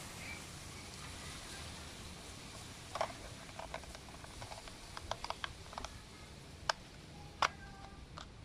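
Plastic clicks and snaps from a toy Kamen Rider Zi-O Ziku-Driver belt as its Ridewatches are pressed and fitted into the side slots. The clicks come scattered and then in a quick cluster, with the loudest snap about seven seconds in, followed by a few faint short tones.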